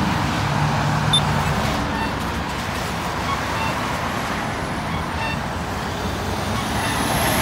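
Road traffic at an intersection: cars and a heavy truck driving past, a steady wash of engine and tyre noise.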